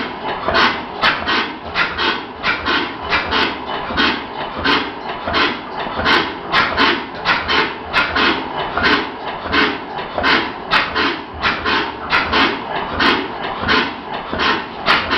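Early Crossley four-stroke overhung-crank slide-valve engine running, with a regular rhythm of short hissing puffs about three times a second.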